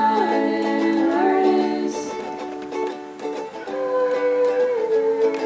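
Background music led by a plucked string instrument such as a ukulele, playing steady sustained notes.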